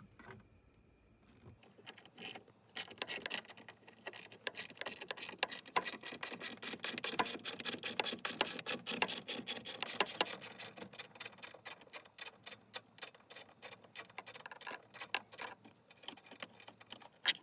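Socket ratchet with an 8mm socket clicking rapidly as it backs out screws. The clicks begin about two seconds in and continue almost to the end.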